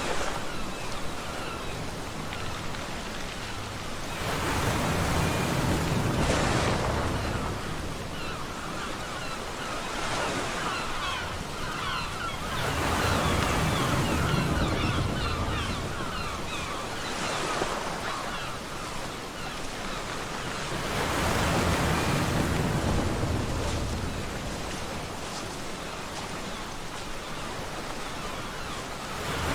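Ocean surf on a beach: waves break in three big swells about eight or nine seconds apart, with a steady wash of water between them.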